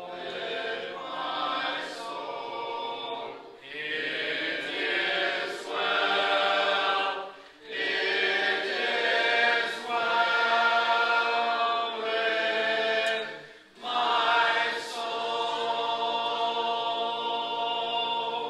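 Congregation singing a hymn a cappella, many voices together with no instruments, in long held phrases with brief breaks for breath between them.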